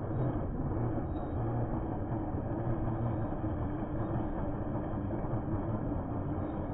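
Radio-controlled scale crawler's electric motor and gearbox running steadily under load as it climbs, a low, dull, muffled rumble.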